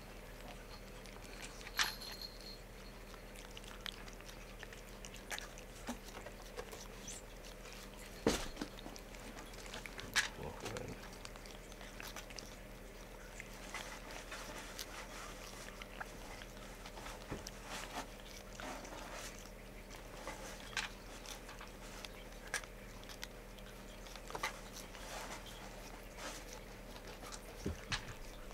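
Abyssinian cat licking a liquid treat squeezed from a hand-held tube: soft licks and small clicks at irregular intervals, a few of them louder, over a faint steady hum.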